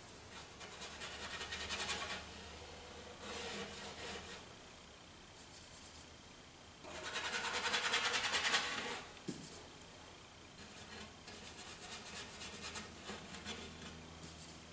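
Paintbrush scrubbing oil paint onto canvas in several bursts of quick back-and-forth strokes. The longest and loudest run of strokes comes about seven to nine seconds in.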